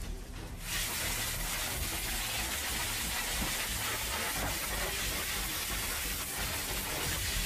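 Fire hose spraying a jet of water onto smouldering debris: a steady hiss that starts suddenly under a second in.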